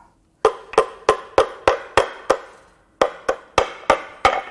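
About a dozen sharp taps on a stuck timing cover of a Jaguar Land Rover 5.0L AJ V8, each with a short ring, in two quick runs of about three a second with a brief pause between them. The cover is held by sealant and a locating dowel, and the taps break it free.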